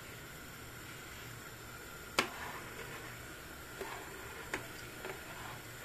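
A metal spoon stirring aşure in a large stainless-steel pot, with one sharp clink about two seconds in and a few lighter clinks later, over a steady low hum.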